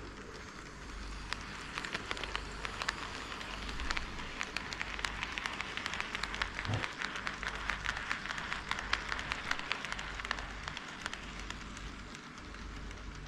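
HO-scale model train, a KATO D51 steam locomotive model, rolling along KATO Unitrack, its wheels making a rapid fine clicking and rattling. It grows louder towards the middle, then fades as it passes.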